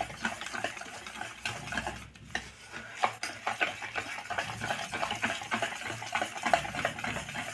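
Wire balloon whisk beating a thick semolina, flour, sugar and milk batter in a steel bowl: a steady wet stirring with many quick light clicks of the wires against the bowl, easing briefly about two seconds in.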